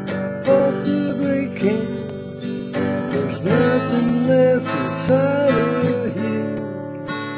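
Acoustic guitar being strummed, with a man singing over it.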